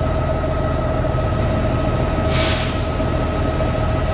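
A machine running steadily, a constant drone with a steady whining tone over a low rumble, and a brief hiss about two and a half seconds in.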